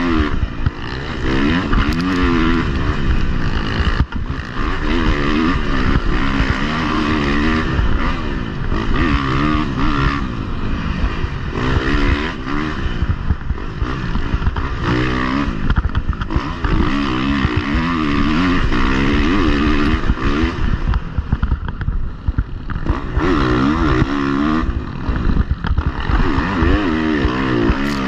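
Dirt bike engine under way, its pitch repeatedly rising and falling as the throttle is opened and closed and the gears change, over a constant rush of noise.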